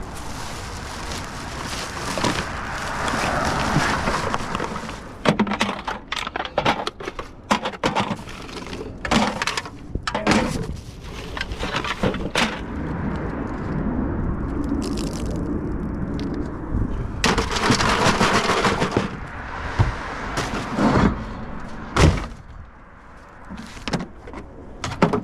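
Litter being handled during a roadside cleanup: irregular sharp cracks and clatters of plastic and debris. A broad rushing noise swells twice.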